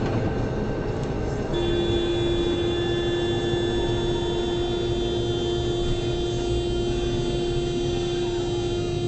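Road and engine noise inside a car moving at highway speed. About a second and a half in, a steady single-pitched tone starts and is held without a break.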